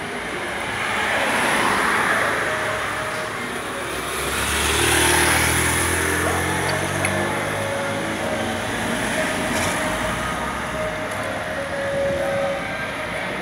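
Street traffic: vehicles passing, the loudest pass about five seconds in with a low engine hum.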